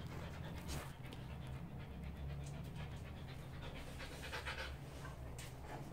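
A Siberian husky panting softly.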